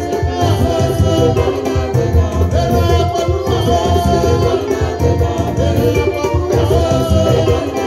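Live Marian praise song: a lead singer and a choir singing together over a band with a strong, steady bass.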